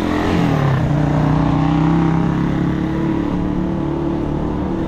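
Motor vehicle engine running steadily and loudly, its pitch dipping briefly about half a second in and then holding steady.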